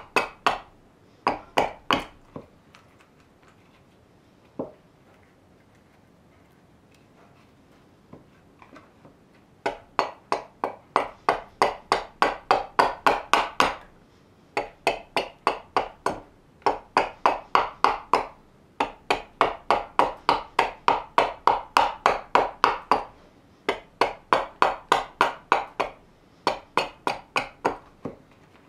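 Axe chopping into a raw birch kuksa blank held on a wooden stump: quick, sharp strokes in runs of about three or four a second. There is a pause of several seconds near the start, broken by a single stroke.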